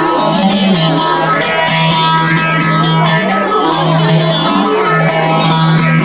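Bağlama (saz) playing an instrumental passage of a semah tune over a steady low drone note, with no singing.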